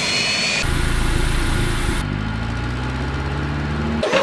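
Jet airliner engine sound effects spliced together. A high rising whine is cut off under a second in, followed by a low steady engine rumble with a hum. The rumble turns duller and lower about two seconds in.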